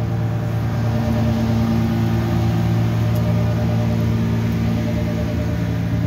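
Truck engine idling steadily, a low even hum.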